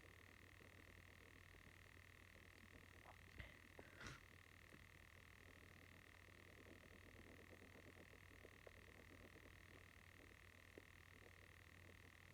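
Near silence: a steady low hum and a faint steady high tone of room or recording noise, with two faint short ticks about three and a half and four seconds in.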